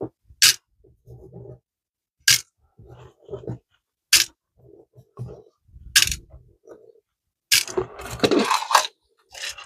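Small metal screws clinking as they are dropped one at a time into a container: four sharp clinks about two seconds apart, with soft handling rubs between them. Near the end comes a busier rattle and scrape of loose screws being moved about.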